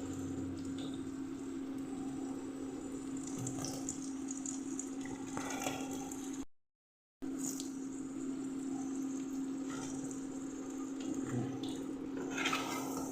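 Battered potato pakoras sizzling as they deep-fry in hot oil: a steady hiss with a low steady hum underneath. The sound cuts out completely for a moment about six and a half seconds in, and swells briefly near the end.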